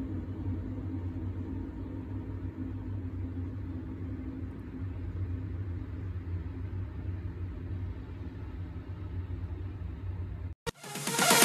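Steady low hum and rumble with no distinct events, the background noise of a room or running appliance. Loud electronic dance music cuts in near the end.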